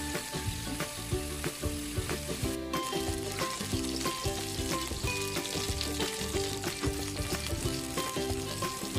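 Chicken drumsticks sizzling and crackling in hot oil in a nonstick frying pan, with light background music playing over it.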